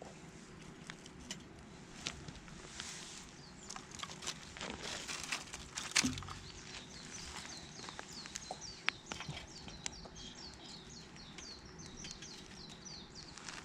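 Small wood campfire crackling with scattered pops and a louder knock about six seconds in, while a bird sings a rapid run of short falling notes through the second half.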